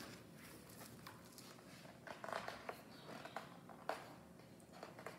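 Faint handling sounds of a picture book being picked up and opened: a few soft paper rustles and light taps, with one sharper click near the end.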